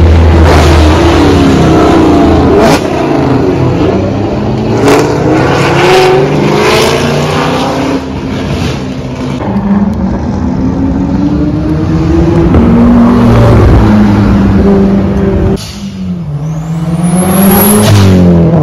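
Several performance cars revving and accelerating away one after another, their engine notes climbing and falling, with a few sharp cracks in the first half. A long rising engine note comes near the end.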